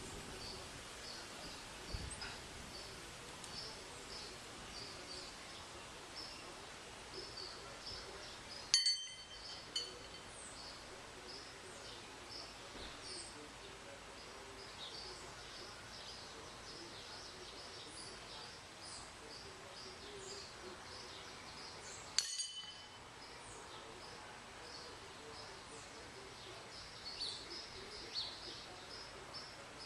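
Back-yard outdoor ambience: a steady run of short high chirps, about two a second, with two sharp ringing clinks, one about nine seconds in and another about twenty-two seconds in.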